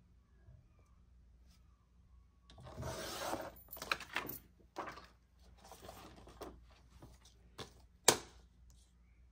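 Laminated plastic offcuts crinkling and rustling as a hand sorts through the pile, in a few bursts, then a single sharp click near the end.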